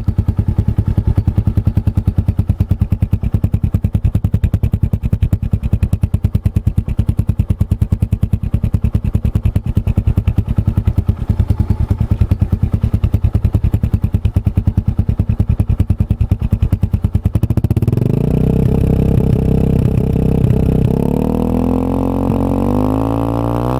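Suzuki Gixxer 150's single-cylinder engine breathing through an aftermarket Akrapovic muffler, idling with an even, rapid exhaust beat. After about seventeen seconds the throttle is opened and the pitch climbs, then near the end it rises and falls in quick revs.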